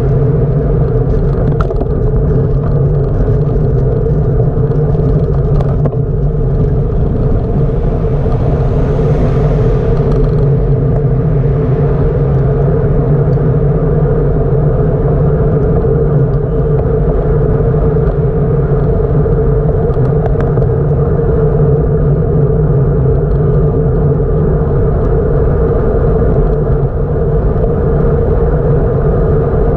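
Steady loud rumble of wind and road noise on a camera carried along on a moving bicycle. A brighter hiss swells and fades about nine seconds in.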